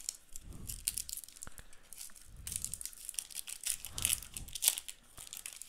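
A trading-card booster pack's plastic wrapper crinkling and tearing open in the hands, in uneven rustling bursts that are loudest in the second half.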